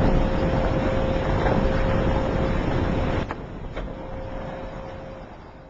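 Steady outdoor background noise with a faint steady hum through it. It drops suddenly about three seconds in and then fades away.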